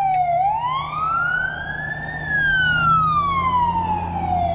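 Siren wailing: its pitch climbs smoothly for about two seconds, falls more slowly for a little over two seconds, then starts climbing again near the end, over a low steady hum.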